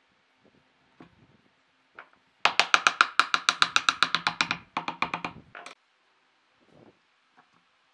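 Wooden mallet rapidly tapping a natural-edge wood slab down onto a glued wooden tabletop to seat it in the glue. The knocks come about seven a second for roughly two seconds starting a couple of seconds in, break briefly, then go on for a few more.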